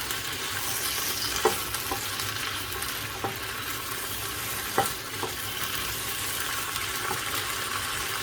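Cabbage sizzling steadily in a pan after a splash of water has gone in to wilt it, with a utensil knocking against the pan a handful of times as it is stirred.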